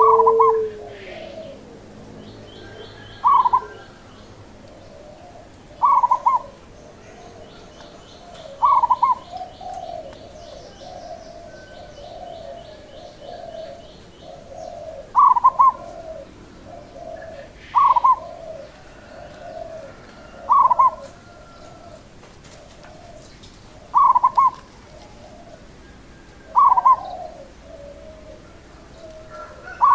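Zebra dove (local perkutut) singing its rhythmic song. A loud high note comes about every three seconds, each followed by a run of lower staccato coos, with a longer pause in the middle.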